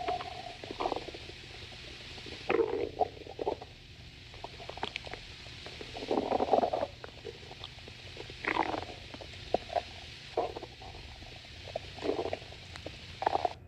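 Stomach growling: a run of irregular gurgles and rumbles with short pauses between them. The longest and loudest gurgle comes about six seconds in.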